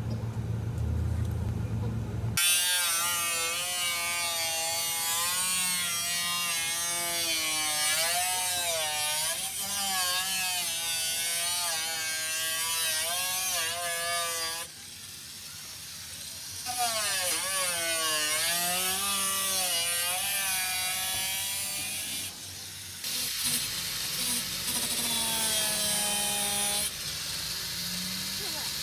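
Electric angle grinder with a flap disc grinding rust off a car's steel door sill, its whine falling and rising again and again as it is pressed in and eased off. It lets up briefly about halfway through and again a little later.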